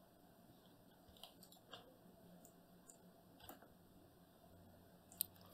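Faint, scattered clicks of a computer mouse and keyboard, about five over a few seconds, with the last near the end the loudest.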